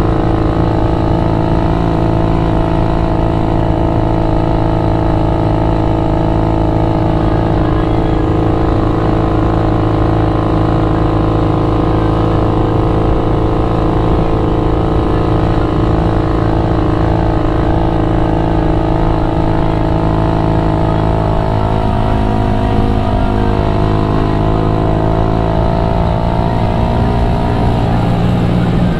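Motorcycle engine and exhaust running at a steady pitch while riding. The pitch dips and shifts about two-thirds of the way through as the revs change, then settles again.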